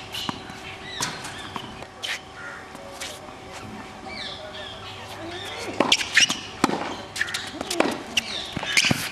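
Tennis ball struck by racquets and bouncing on a hard court during a rally: sharp pops at uneven intervals, several close together about six seconds in. Birds call in the background.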